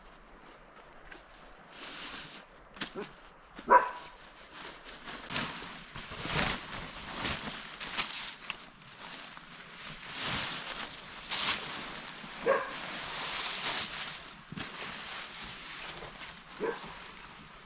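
A dog making three short high-pitched calls, the first about four seconds in and the loudest. Rustling and crunching noises run through the middle.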